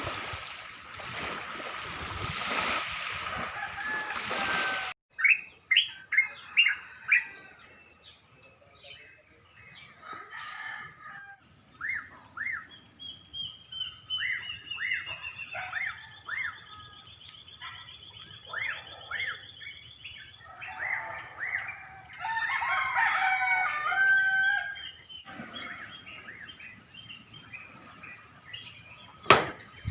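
Small birds chirping in short repeated calls, with a long trill, and a rooster crowing once about three-quarters of the way through. It opens with a few seconds of gentle waves that cut off suddenly.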